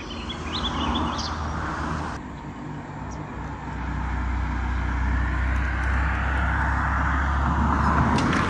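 A few bird chirps at the start, then road traffic noise: a steady low engine hum with tyre noise that grows louder from about three seconds in as vehicles pass.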